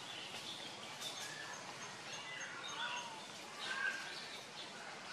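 Outdoor tree-canopy ambience: birds chirping and calling here and there over a steady hiss, with a louder chirp a little under four seconds in.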